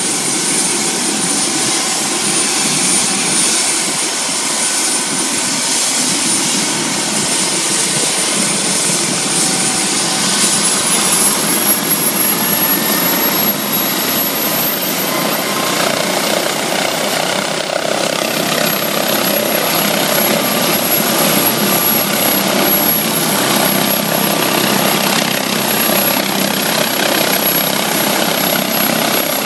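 MD Explorer air-ambulance helicopter running on the ground with its rotor turning, a steady turbine-and-rotor noise. A thin high turbine whine rises in pitch about ten seconds in, and the overall noise grows a little louder after that as the helicopter readies for take-off.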